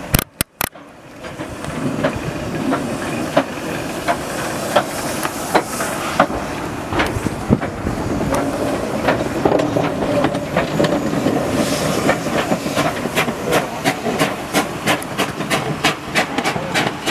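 Steam locomotive working hard as it pulls away, with a steady steam hiss and sharp exhaust chuffs that come faster as it gathers speed.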